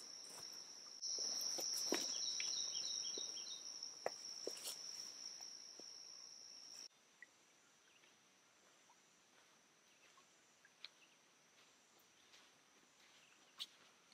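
A steady high-pitched insect trill with footsteps on a dirt trail. It comes in about a second in and stops abruptly about seven seconds in, leaving near silence broken by a couple of faint clicks.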